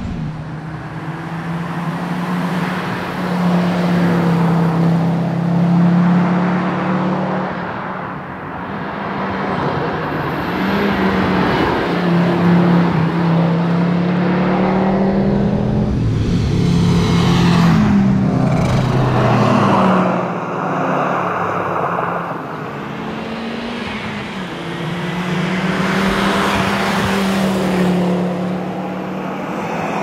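Audi Quattro rally car's five-cylinder engine driven hard, approaching and passing several times in succession. Its pitch climbs, drops with each gear change and climbs again.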